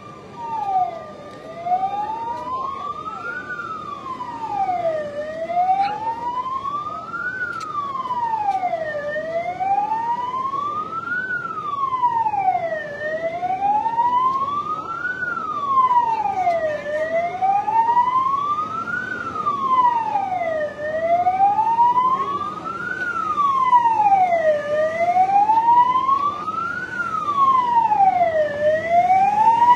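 Emergency-vehicle siren on a slow wail, its pitch sweeping up and down about every four seconds, starting abruptly right at the beginning. Fainter, higher siren tones overlap it, over the noise of a large crowd.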